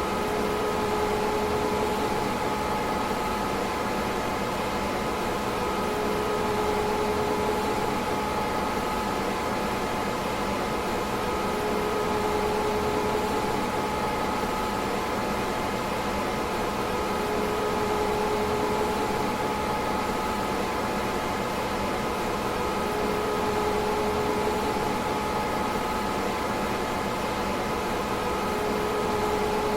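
DEC PDP-11/44 minicomputer running: a steady whir of cooling fans with a constant hum tone, and a lower tone that swells up and fades about every six seconds.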